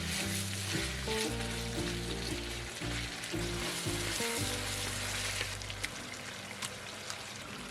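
Food sizzling as it fries in hot oil in a pan, with a few short clicks of stirring. Background music with low bass notes plays under it and stops about five and a half seconds in.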